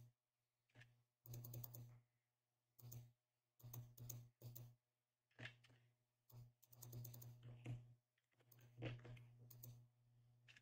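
Faint typing on a computer keyboard: irregular bursts of quick keystrokes with short pauses between them.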